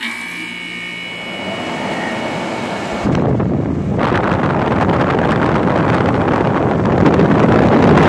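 Late-1960s Sears Coldspot 18,600 BTU window air conditioner running on high fan, driven by its newly fitted Fasco fan motor, with a faint whine over a steady rush of air. It grows louder and breathier about three to four seconds in.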